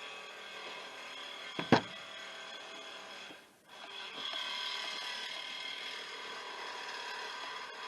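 Milwaukee cordless reciprocating saw (Sawzall) running steadily, with a metal-cutting blade sawing angle iron. There is a sharp loud knock about two seconds in and a brief drop-out around the middle.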